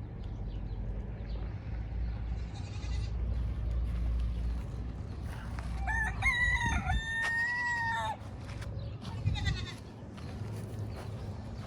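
Rooster crowing once, about six seconds in: a call of about two seconds that breaks after its first part, holds steady, then drops at the end, over a steady low rumble.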